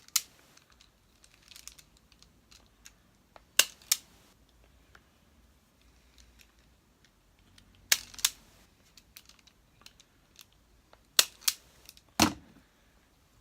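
Wire strippers or cutters snipping at the insulation of a vacuum cleaner's mains flex: sharp snaps, mostly in pairs, every few seconds.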